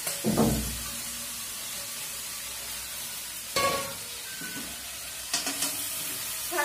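Leafy greens sizzling in hot oil in a steel wok, with a heavy thud about half a second in as they are tipped in from a steel bowl. A ringing metal clank comes about three and a half seconds in, and a few clicks of the spatula near the end.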